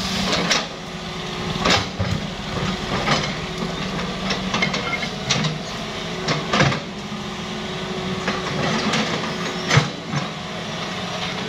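Hitachi hydraulic excavator's diesel engine running steadily, with scattered sharp knocks and clanks from the bucket and arm as it dumps wet mud and digs into the bank. The loudest knock comes near the end.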